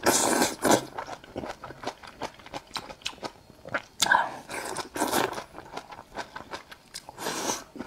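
Close-miked eating of skewered bok choy in chili sauce: three loud slurps as the leaves are sucked into the mouth, at the start, about four seconds in and near the end, with crisp crunching chews in between.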